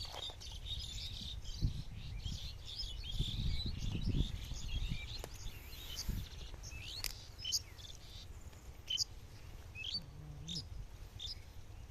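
Small birds chirping, with short high calls scattered throughout, over a low rumble and a few dull thumps.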